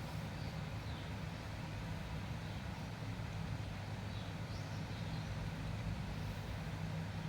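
Steady low mechanical hum, like a running engine or passing traffic, over a hiss of background noise, with a few faint short high chirps.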